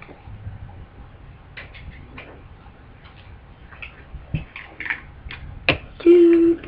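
Scattered light clicks and taps of plastic dolls being handled and moved around, irregular and growing more frequent; about six seconds in, a loud steady hum-like tone lasts about half a second.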